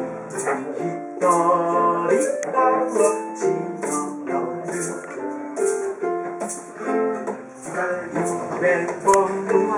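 Ukulele playing a tune in plucked and strummed notes, with a shaker keeping a steady beat of about one shake a second.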